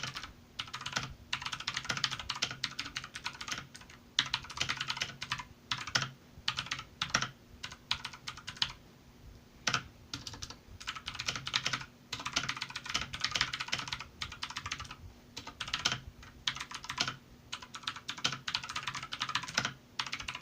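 Typing on a Redragon K551 Vara RGB mechanical keyboard: fast runs of key clicks and clacks, broken by short pauses every few seconds.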